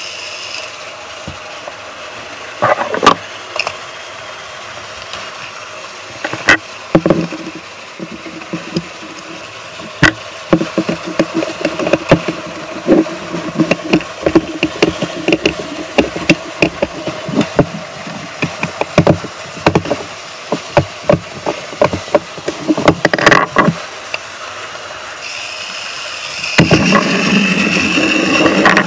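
Small electric gear motor of a battery-powered toy train engine whirring, cutting out just after the start and starting again near the end. In between, clicks, knocks and rattles of the plastic toy being handled and a screwdriver working a screw on its underside.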